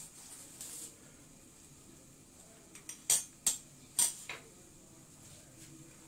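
Metal spoon scraping ghee across a chapati on a plate near the start, then a few sharp clinks of the spoon against a dish about three to four seconds in.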